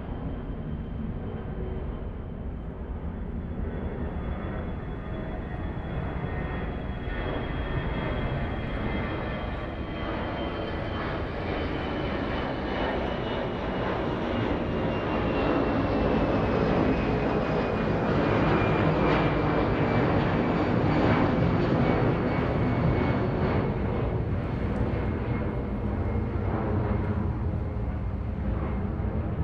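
Fixed-wing airplane engine passing overhead, growing louder to a peak past the middle and then easing off. A thin high whine falls slowly in pitch as it goes by.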